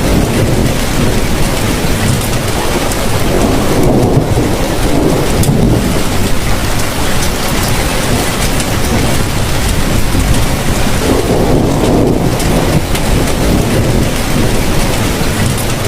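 Heavy rain falling steadily, with low rolling thunder swelling twice, about four seconds in and again past eleven seconds.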